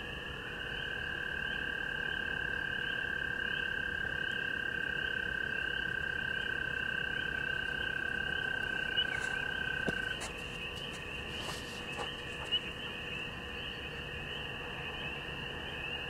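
Frogs and toads calling at the lakeshore: a steady chorus of rapidly repeated high calls, with one long, even trill that stops abruptly about ten seconds in.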